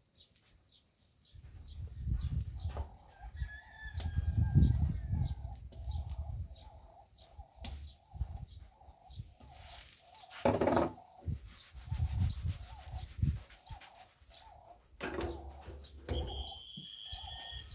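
Small birds chirping, short high falling chirps about twice a second, over chickens clucking in a pulsing run. There are bursts of low rumble and a few sharp clicks.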